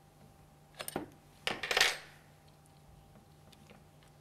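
A few light metal clicks about a second in, then a steel Allen key clattering down onto the tabletop, the loudest sound, a brief rattle that dies away within half a second.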